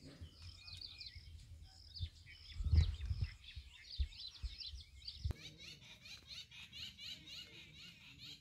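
Many small birds chirping and calling, a steady chatter of short high chirps that becomes a dense, fast run of repeated chirps in the second half. A few low thuds stand out in the middle.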